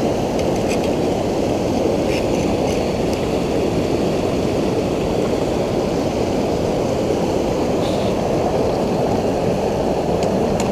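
River water rushing steadily between rocks at the water's edge, a deep even rush, with a few faint ticks from handling.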